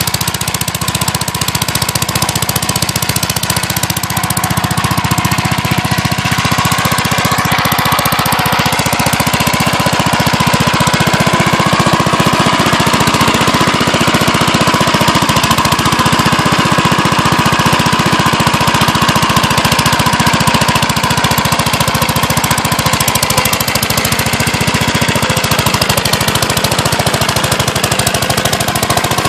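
1972 Gravely Super Convertible walk-behind tractor's engine running steadily under load while driving a dog-eater snowblower attachment through deep snow.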